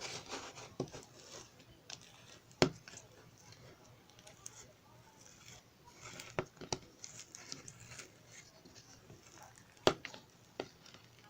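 Small objects being handled up close: scattered sharp taps and clicks, two of them loud (about a third of the way in and near the end), over soft rustling and crinkling.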